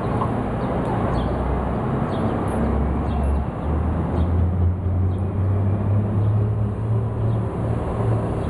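City traffic noise dominated by the low hum of a large vehicle's engine running nearby, its pitch stepping up about three and a half seconds in as it pulls away or revs.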